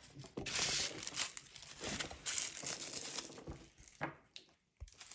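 Plastic wrapping crinkling and tearing as a LOL Surprise ball's wrapped layers are pulled open by hand, with a brief pause near the end.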